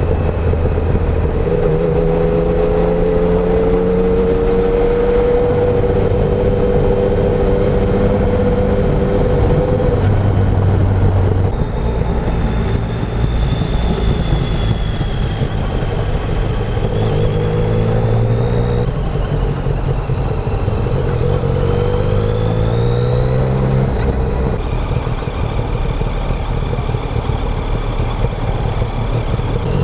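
Yamaha Tracer 900's three-cylinder engine on its stock exhaust, heard while riding. The revs climb slowly through the first ten seconds, drop about a third of the way in, then rise again in two short pulls.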